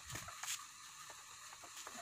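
Light clicks and taps of a motorcycle's plastic side body panel being handled and worked loose, the sharpest click about half a second in.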